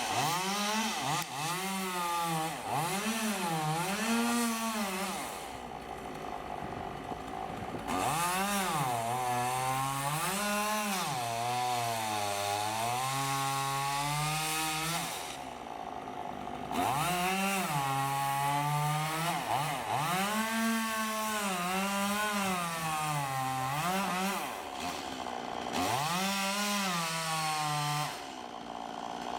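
Chainsaw running, revved up and down over and over as it cuts, with its pitch rising and falling. It drops back to a lower, quieter running speed a few times in between.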